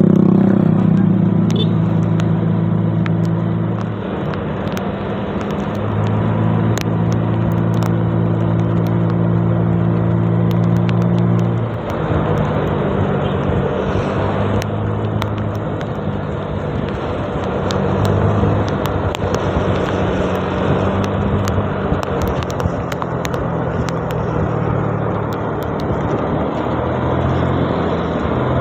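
Honda Vario 125 scooter's single-cylinder engine running on the move, its note dropping away and coming back a few times as the throttle changes, over steady wind and road rush. Scattered sharp clicks.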